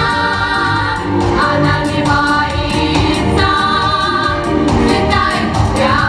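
A girls' vocal ensemble singing together into microphones over an amplified pop backing track with a steady beat.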